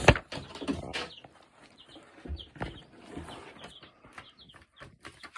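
Chickens clucking, with several short high calls scattered through.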